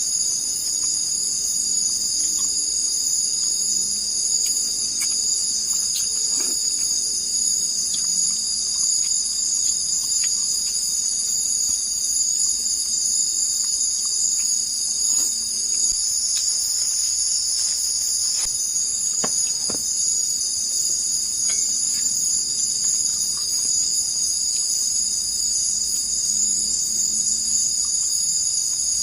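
Steady chorus of forest insects, several high-pitched trills layered together without a break, with a few faint scattered clicks.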